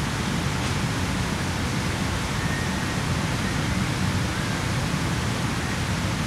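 Steady rushing noise at an even level throughout, with no distinct strikes or calls standing out.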